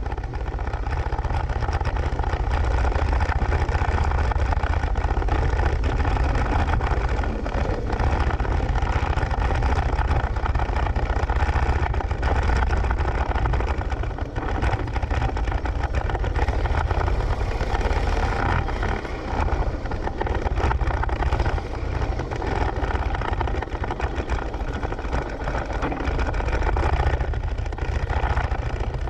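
Harley-Davidson Road Glide's V-twin engine running while riding, heard close up from beside the floorboard with road and wind noise, fading in over the first second or two. Near the end the bike has stopped and the engine idles.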